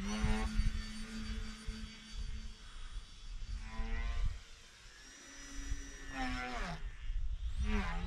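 Edge 540 RC aerobatic model plane's motor and propeller droning overhead: a steady whine for about four seconds that fades, then returns higher and falls in pitch about six seconds in as the throttle and distance change. Wind rumbles on the microphone.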